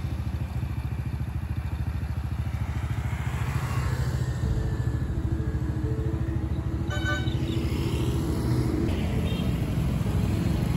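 Small motorcycle engines running steadily close by as road traffic passes.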